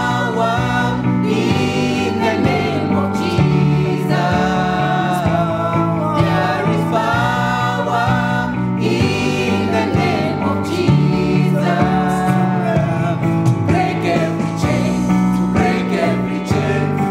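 Gospel song: voices singing a melody over a steady instrumental backing.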